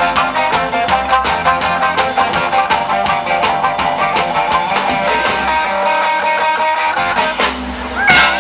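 Guitar-led rock-style music with a steady beat, with a brief loud burst near the end.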